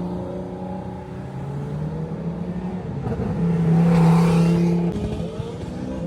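Sports-car engines running as cars drive off in a procession. One car passes close and gets louder, peaking about four seconds in before fading.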